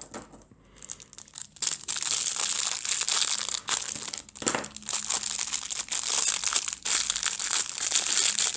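Crinkly packaging being rummaged through by hand: a dense, continuous crinkling that starts about a second and a half in, after a brief quiet moment.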